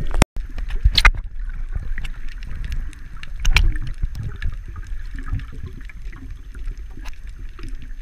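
Muffled underwater sound picked up by a diving camera: a low rumble of moving water with scattered clicks and knocks, and louder surges about a second in and again around three and a half seconds. The sound cuts out completely for a split second just after the start.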